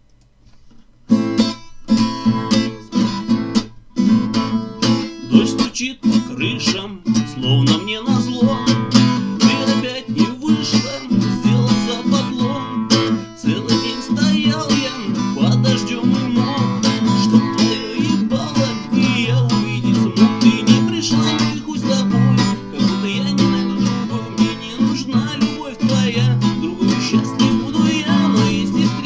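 Acoustic guitar strummed in a steady rhythm, starting about a second in.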